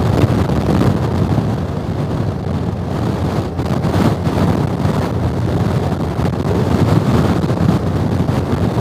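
Wind buffeting the microphone of a riding motorcyclist in gusty weather, a dense low rumble that wavers unevenly, with the motorcycle's road noise beneath.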